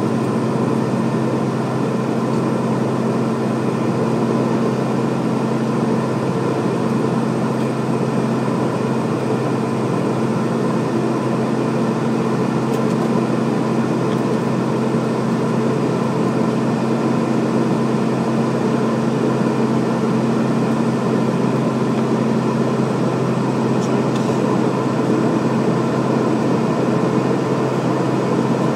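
Steady cockpit drone of a Beechcraft King Air B200 in flight: its twin Pratt & Whitney PT6A turboprops and propellers give a constant low hum over an even rush of air and engine noise. One of the low hum tones fades about 23 seconds in and comes back near the end.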